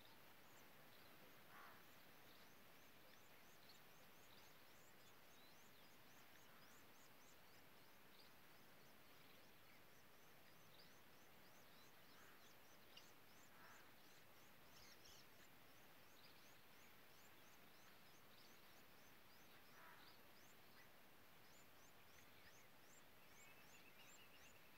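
Near silence: a faint outdoor hiss with many short, thin, high-pitched chirps scattered throughout, a few brief lower calls, and a wavering whistle near the end.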